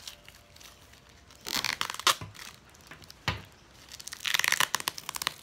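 Plastic parcel packaging being torn open by hand: two bursts of tearing and crinkling, with a sharp snap between them.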